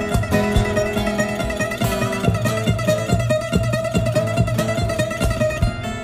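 Background music played on plucked strings, guitar-like, with quick picked notes over a steady rhythm.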